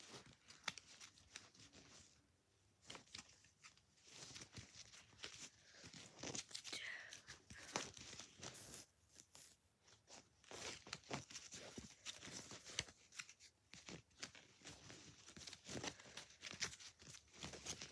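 Faint handling noise of Match Attax trading cards being shuffled and rearranged in the hands: scattered light clicks and soft rustles.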